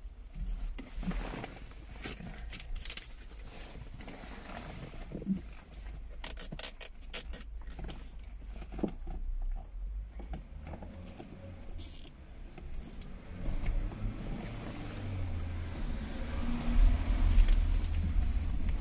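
Nylon cable ties being fed and pulled tight, clicking and ratcheting in short runs, along with plastic and cable handling as a microphone lead is tied to the car's wiring harness. A low rumble builds near the end and is the loudest part.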